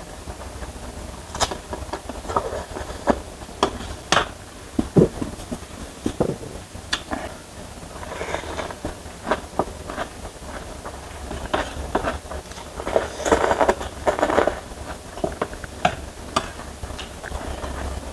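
Close-up eating sounds: instant noodles slurped and chewed, with many sharp clicks scattered throughout and a longer slurp about two-thirds of the way in. A steady low hum runs underneath.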